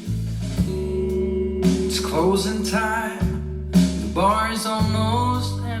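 A song with guitar, bass and sung vocal lines, played back through Grundig Minerva Mini-Box MB 5030 HiFi speakers. The voice comes in about two seconds in and again about four seconds in, over steady bass notes.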